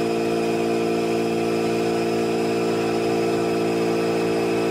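Log-rounding machine running with a steady hum at a constant pitch.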